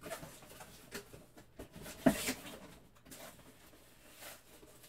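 Cardboard box being opened by hand: flaps scraping and rustling, with a sharper knock about two seconds in.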